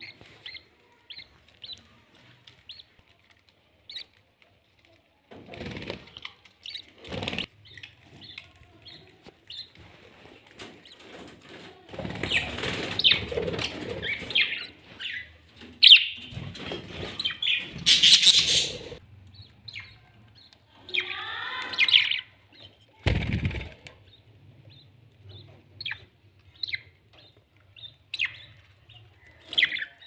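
Caged budgerigars chirping in short, high, repeated calls, with stretches of wing flapping and scuffling in the middle and a single loud thump about three-quarters of the way through.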